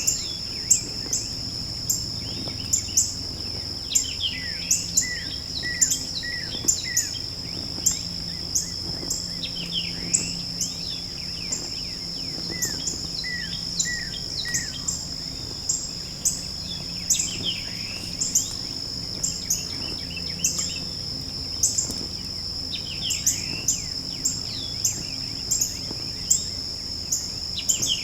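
Woodland ambience: a steady high-pitched insect drone with birds calling in short falling notes, and frequent sharp ticks about one or two a second.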